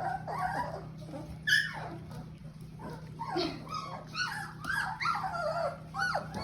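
Several 17-day-old Shepsky puppies whimpering and squeaking, many short rising-and-falling cries overlapping one another.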